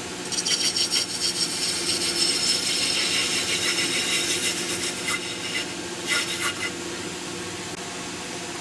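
A gouge cutting into a turnip spinning on a wood lathe: a continuous hissing scrape for about five seconds, then two brief touches of the tool about six seconds in, over the lathe's steady motor hum.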